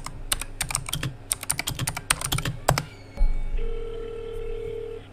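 Rapid keystrokes on a computer keyboard for about three seconds as a search is typed. Then a low thump, and a steady telephone tone as a call is placed, lasting over a second.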